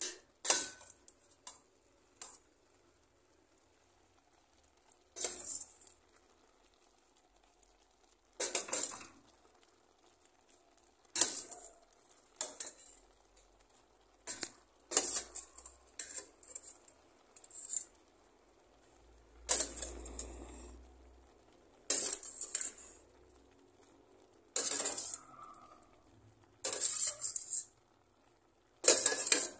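A utensil scraping and clinking against a pan while stirring and tossing broccoli and beef, in about a dozen short strokes a few seconds apart with quiet between them.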